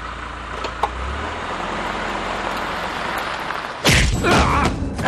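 A car engine running and moving off, a steady rumble giving way to a rising rush of noise. Near the end, a sudden loud metal bang followed by a short grating creak, as a barred cell door is thrown open.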